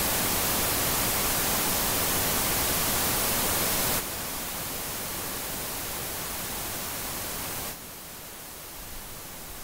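Television static hiss, a steady even rush with no tones. It drops in level twice: about four seconds in and again about three-quarters of the way through.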